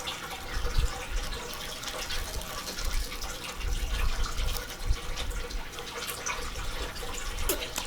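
Close-up eating sounds: a person chewing food, with wet mouth noises and many small irregular clicks.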